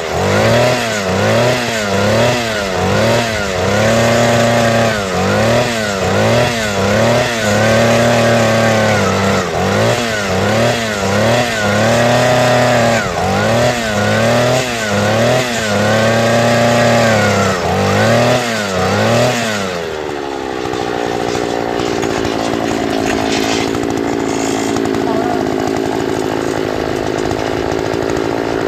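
Two-stroke 63 cc engine of a trolley-mounted earth auger (post hole digger) running, its pitch rising and dipping about once a second. About twenty seconds in, it drops to a lower, steady speed.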